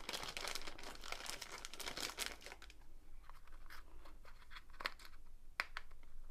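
Clear plastic packaging bag crinkling as small plastic storage tubs are handled and taken out of it, then a few sharp plastic clicks from a tub's snap-lock lid being worked in the second half.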